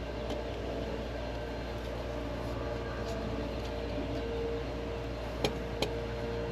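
A steady machine hum, with two sharp clicks about five and a half seconds in.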